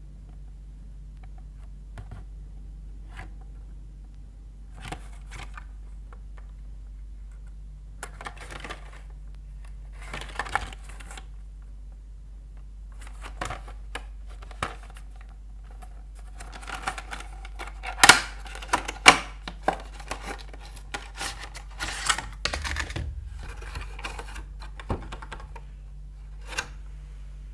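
Hands handling the cardboard-and-plastic retail box of a phone case: scattered taps, scrapes and rustles of fingers on the box, then a cluster of sharp snaps and crackles about two-thirds of the way in as the packaging is worked open, with the box flap lifted near the end.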